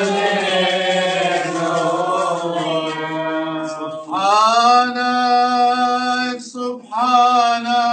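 Male voices chanting Syriac Orthodox liturgical chant; from about four seconds in, one voice holds long notes, breaking off briefly near the end.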